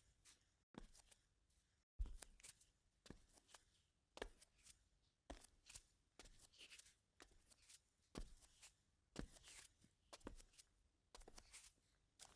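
Bare feet walking on concrete: a steady run of soft, faint steps, about two a second.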